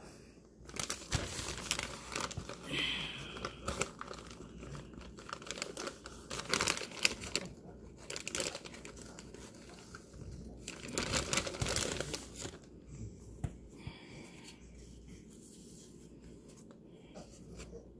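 Thin plastic wrapper of a pack of Huggies baby wipes crinkling and rustling in the hands in irregular bursts, with ripping sounds as the pack is pulled open. The handling goes quieter for the last few seconds.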